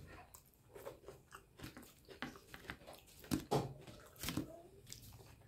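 Quiet eating sounds: chewing and fingers working water-soaked rice against a plastic plate, with scattered small clicks and a few sharper knocks near the middle as the plastic plates are handled.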